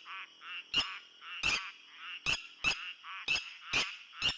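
Red-wattled lapwings giving loud, repeated sharp alarm calls, a strong call roughly every half second with softer calls in between: the birds are raising the alarm at a large-spotted civet on the ground nearby.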